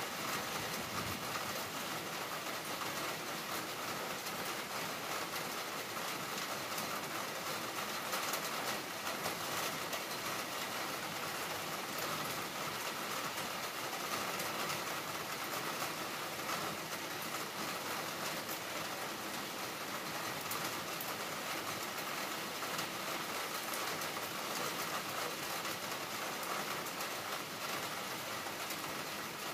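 Heavy rain falling steadily, a constant even downpour noise with no distinct thunder claps.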